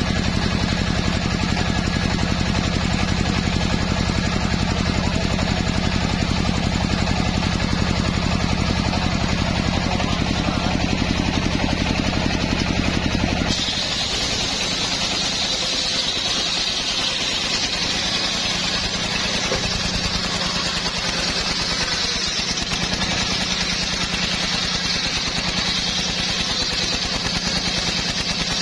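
Homemade engine-driven circular saw bench running and ripping a hardwood log lengthwise: the engine's steady drone under the noise of the blade cutting. About halfway through, the sound changes abruptly: the low engine drone drops back and the higher cutting noise comes forward.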